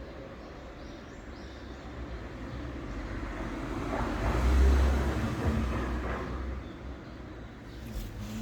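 A vehicle passing by: a rumbling noise that grows louder to a peak about halfway through, then fades away.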